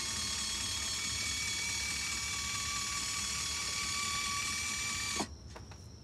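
The small electric motor of a Run-Chicken T50 automatic coop door opener runs with a steady whir as it winds the sliding door up. About five seconds in, as the door reaches the top, the motor cuts off suddenly and its pitch drops briefly as it stops.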